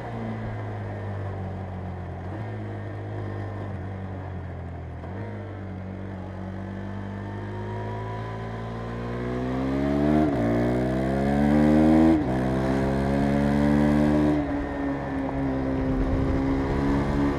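KTM 390 Adventure's single-cylinder engine, heard while riding. The revs ease off and hold steady for several seconds, then climb hard from about eight seconds in. Two quick upshifts drop the pitch around ten and twelve seconds in, and the throttle backs off to a steady pull near the end.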